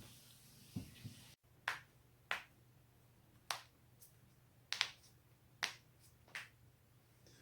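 Spinal joints in the neck and back cracking: a series of about ten sharp pops, spaced roughly half a second to a second apart, two of them in quick succession near the middle.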